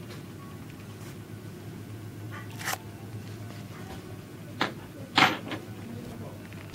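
Steady low hum with a few short handling knocks and clatters: one under three seconds in, then a cluster around five seconds, the one just past five seconds the loudest.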